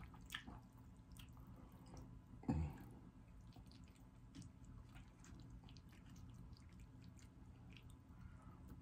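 Faint wet, sticky clicks and squelches of sauce-coated Samyang carbonara noodles being stirred and lifted from a bowl with wooden chopsticks, with one louder, short low sound about two and a half seconds in.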